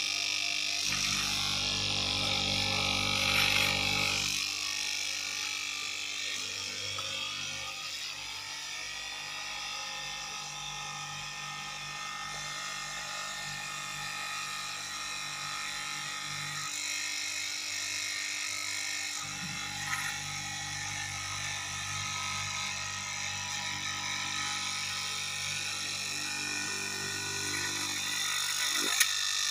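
Electric straight-knife cloth cutting machine running steadily, its upright blade cutting through a thick stack of fabric layers. A lower hum comes in for stretches, and there is a sharp click near the end.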